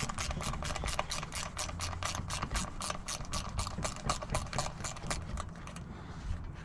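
Ratchet wrench clicking in an even run of about five clicks a second while backing off the 10 mm rim lock nut on a dirt bike wheel; the clicking stops near the end.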